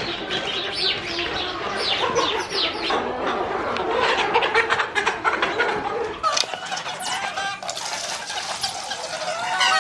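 A flock of chickens clucking and calling over one another, many short, falling calls close together throughout.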